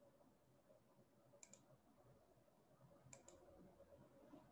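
Faint computer mouse clicks, twice, about a second and a half apart, over near silence.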